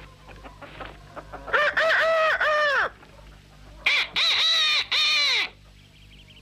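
Cartoon rooster crowing: a long cock-a-doodle-doo in several arching notes, then about a second later a second, higher-pitched crow from the green parrot copying it.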